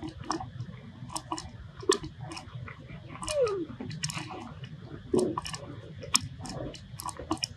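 People chewing food with their mouths, many short irregular clicks and smacks as they taste it.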